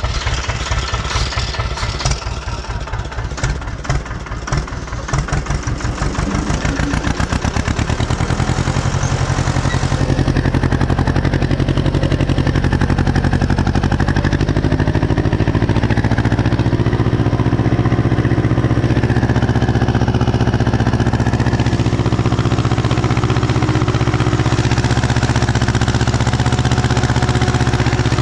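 Ursus C-330M tractor's two-cylinder diesel engine pulling a plough. It chugs at low revs with clearly separate beats at first, speeds up between about six and ten seconds in, then runs steadily at working revs.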